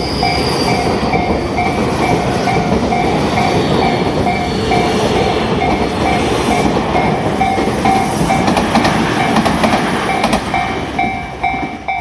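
Electric commuter train running past a level crossing, with rumbling and wheels clacking over the rail joints. The crossing's warning bell keeps dinging steadily, about twice a second. The train noise fades near the end, leaving the bell.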